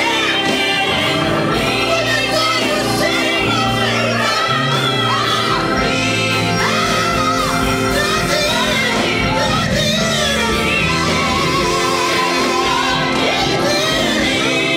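Gospel praise singing: women's voices singing into microphones, with gliding vocal runs over steady instrumental accompaniment.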